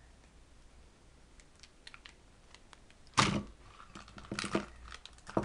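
Tableware being handled on a tabletop: faint scattered clicks, then one louder knock a little after three seconds in, followed by a quick run of taps and clicks.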